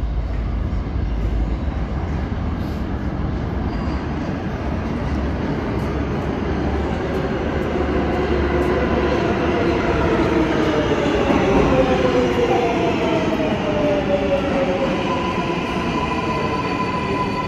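New York City Subway R142A train pulling into a station, with a low rumble from the wheels on the rails, loudest about twelve seconds in. A whine falls in pitch as the train slows, then settles into a steady high tone near the end as it comes to a stop.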